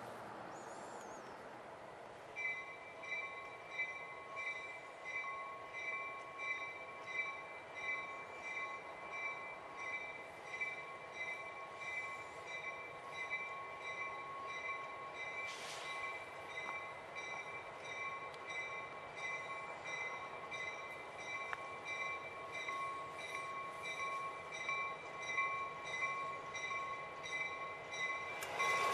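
Railroad grade-crossing warning bell starts ringing about two seconds in, a steady ding repeating about one and a half times a second at an even level.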